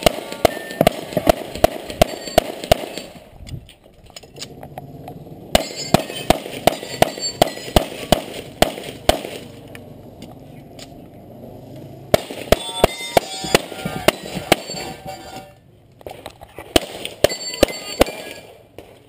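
Handgun fire in fast strings of shots, about three to four a second, as a competitor shoots a USPSA practical-shooting stage. The strings break off for a second or two about four seconds in and again near the end, while the shooter moves between positions.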